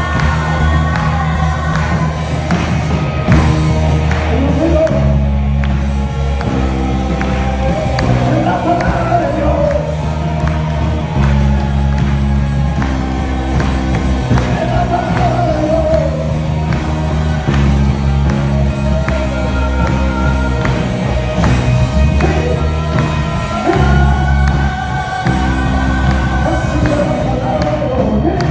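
Music with a singing voice over a steady beat and bass line.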